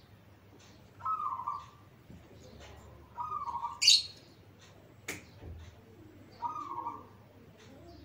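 Caged zebra dove (perkutut) cooing: three short rolling coo phrases, about two and a half seconds apart. A brief high hiss just before the middle is the loudest sound, and a sharp click follows about a second later.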